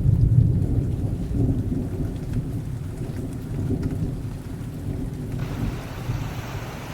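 Waterfall roaring steadily, a deep low rumble of falling water, with a brighter hiss of spray joining about five and a half seconds in.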